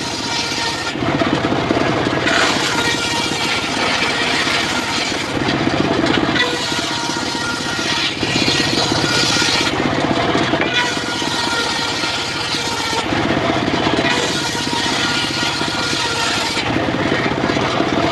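Mobile circular sawmill ripping a log: the engine and blade run without a break, and the sound of the cut swells and eases in a repeating pattern about every four seconds.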